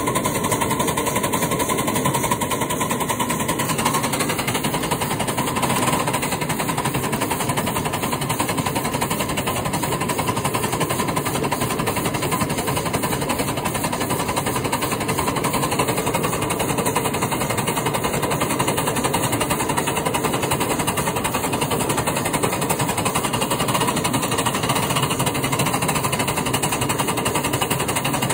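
Southern 193 locomotive running steadily as it works out of the yard, a rapid, even pulsing with little change.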